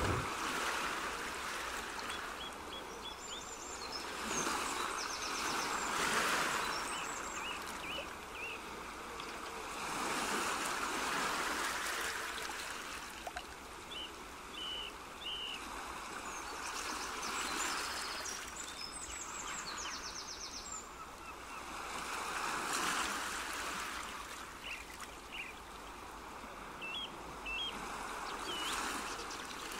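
Nature ambience: flowing water that rises and falls every five or six seconds, with small birds chirping and trilling over it.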